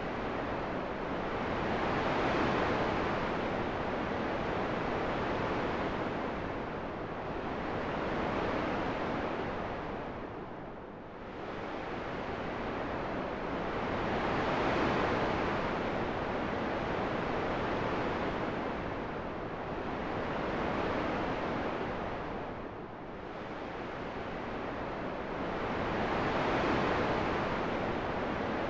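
Rushing wind noise that swells and eases in slow gusts, about every six seconds.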